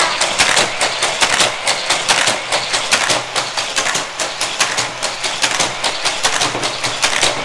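Motorized speed boosters of a Hot Wheels Corkscrew Crash track running: a steady, rapid clattering whir from the battery-powered booster wheels.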